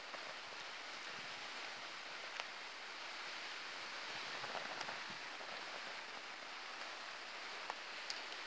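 Small firelighters burning with open flames: a steady soft hiss with a few scattered faint crackles and ticks.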